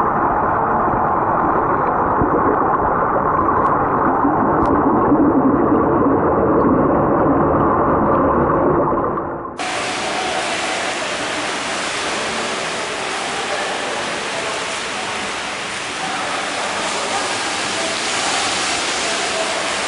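Muffled, steady rushing water noise heard with the microphone submerged in a swimming pool. About ten seconds in it changes abruptly to the steady, brighter hiss of splashing water from swimmers doing lengths in an indoor pool hall.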